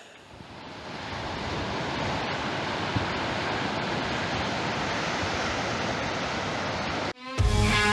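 Ocean surf washing onto a beach, with wind on the microphone: a steady rushing noise that fades in over the first second and cuts off suddenly near the end.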